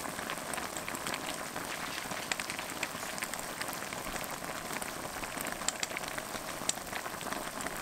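A pan of Manila clams and cherry tomatoes boiling over high heat in a butter and cooking-wine broth: a steady bubbling with many small crackling pops.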